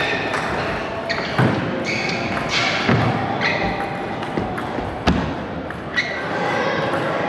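Table tennis rally in a large hall: the ball knocking off the paddles and the table, about six sharp knocks at uneven spacing roughly a second apart, over the steady background noise of the hall.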